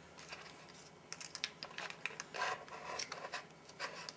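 Foil-laminate MRE retort pouch being cut open across its top, a string of small snips and crinkling rustles starting about a second in.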